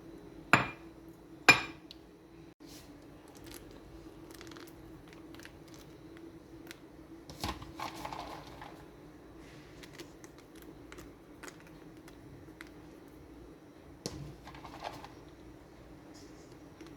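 Kitchen utensils and dishes clinking: two sharp, ringing clinks about half a second and a second and a half in, then scattered softer knocks and brief scraping, with a louder knock and scrape near the middle and again near the end. A steady faint low hum runs underneath.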